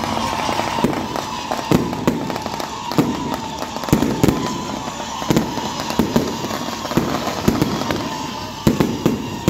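Aerial fireworks launching and bursting: a dense, irregular run of pops and crackles, with louder bangs about once a second.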